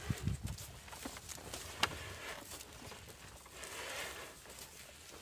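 Quiet shuffling of a harnessed bullock's hooves on dry straw and soil, with a few soft low knocks at the start and one sharp click a little under two seconds in.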